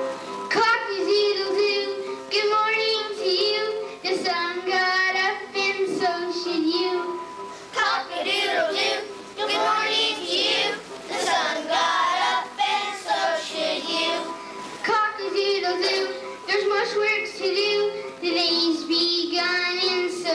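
Children singing a song together over musical accompaniment.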